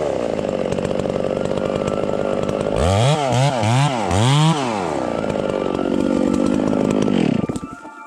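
Modified two-stroke chainsaw running at high revs, blipped up and down four times about three seconds in. It runs steadily again, then its pitch falls and the sound drops away near the end.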